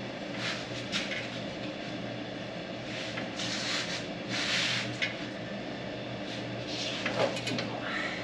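Scattered light clicks and two short rustles, about three and four and a half seconds in, as a switch on the Jeep's switch panel is worked for a rear locker test, over a steady low hum.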